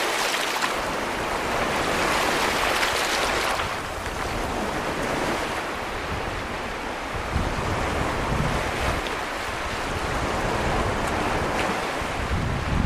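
Small Baltic Sea surf washing over a stony beach and breaking around boulders, a steady rushing wash that swells and eases. Wind rumbles on the microphone at times, most about two-thirds of the way through and near the end.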